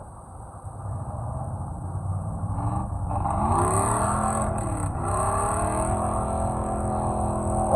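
Off-road 4WD engine revving under load. It grows louder, its pitch climbs, dips briefly, climbs again, and then holds steady.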